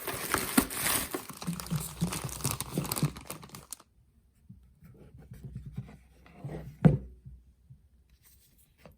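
Packaging being unwrapped by hand: dense crinkling and tearing for about the first four seconds, then quieter handling with one sharp knock near seven seconds.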